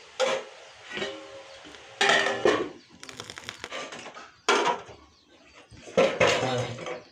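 Stainless steel plate and small steel bowls clanking as they are handled and set down, about six sharp metallic knocks, some left ringing.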